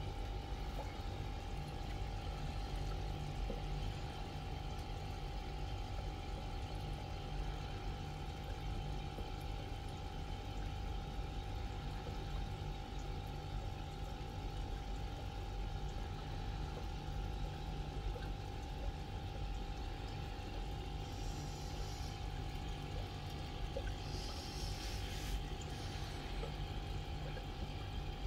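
Aquarium pump running: a steady low hum with one constant higher tone over it, and water moving in the tank.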